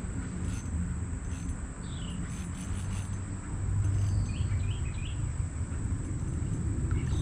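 Steady high-pitched drone of crickets, with a few short, falling bird chirps over a low rumble that swells about four seconds in.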